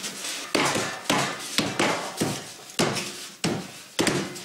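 Hands knocking and slapping on large Styrofoam blocks as they are pressed and seated onto each other: a series of sharp knocks, about two a second.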